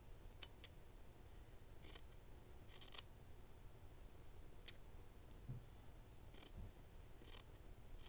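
Scissors snipping through t-shirt fabric: a faint series of separate snips, roughly one every second, as the shirt is cut into a continuous strip of t-shirt yarn.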